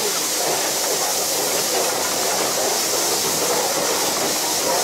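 Steady hiss of steam in the cab of a 1915 Baldwin 0-6-2T steam locomotive, holding at one level without chuffs or pauses.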